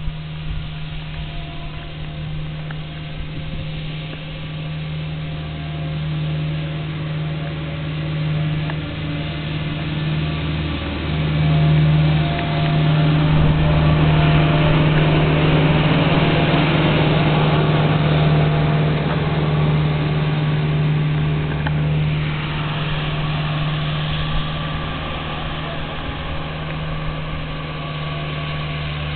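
Elgin Pelican street sweeper running with a steady, low hum, with the hiss of its brooms on the pavement. It grows louder as it passes, loudest about halfway through, then fades somewhat as it drives away.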